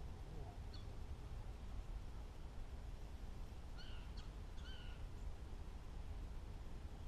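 Steady low outdoor rumble, with a bird calling twice about four seconds in and a brief chirp shortly after the start.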